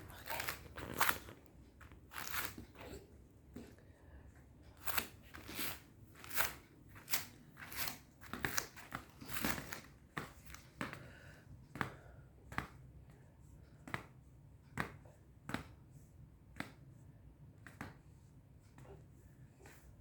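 Irregular sharp clicks and crinkly rustles, several a second for the first half and sparser after that.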